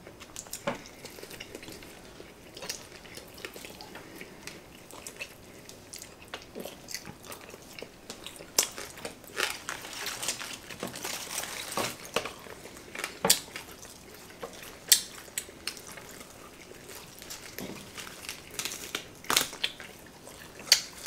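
Quiet eating at a table: chopsticks clicking against plates now and then, with chewing of crispy roast pork. A stretch of rustling and crunching comes around the middle.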